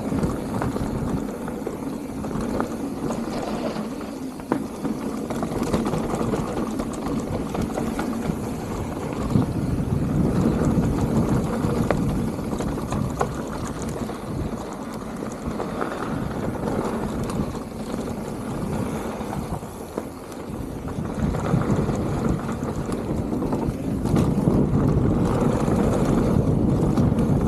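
Wind rushing over an action camera's microphone mixed with the rumble of mountain-bike tyres rolling over a dirt trail, with a few sharp knocks and rattles from the bike; it swells and fades with speed and grows louder near the end.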